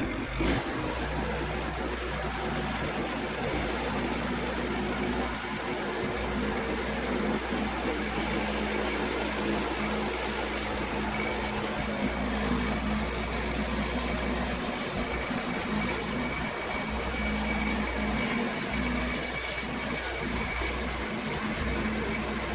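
Woodland Mills HM122 portable band sawmill running steadily, its small gas engine driving the band blade through a log on a smooth cut.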